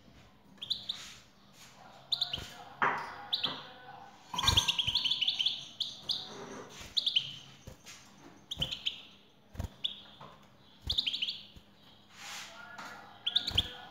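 European goldfinch twittering: short bursts of rapid high chirps about once a second, with a longer run of twittering about four and a half seconds in. Sharp light taps come between the bursts.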